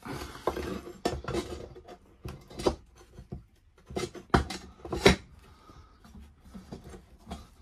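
Flat metal target plate and its fittings being handled and set down on a wooden workbench: irregular clanks and knocks with rubbing and scraping between them, the loudest knock about five seconds in.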